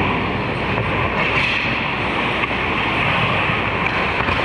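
Ice hockey play heard from a camera on the goal net: a steady hiss of skates carving the ice over the rink's din, with a few light stick and puck clicks.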